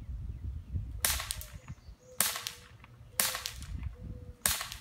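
A BB gun firing four shots in quick succession, a little over a second apart, each a sharp crack that trails off briefly.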